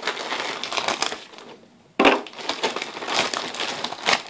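Crinkling and rustling of a plastic parts bag being handled close to the microphone, dipping briefly and then coming back suddenly louder about two seconds in.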